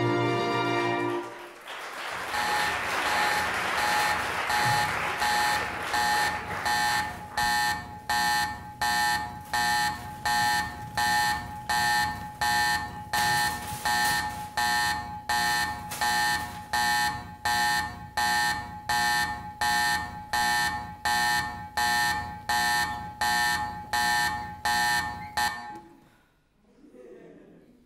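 Music ends about a second in; then an electronic alarm beeps with one fixed pitch, about twice a second for over twenty seconds, and cuts off near the end.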